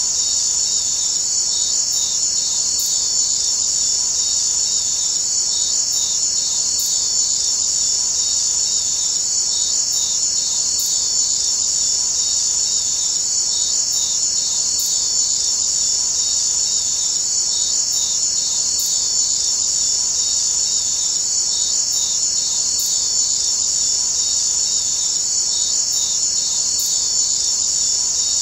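A steady, high-pitched chirring insect chorus that does not change, with faint high ticks in pairs about every four seconds.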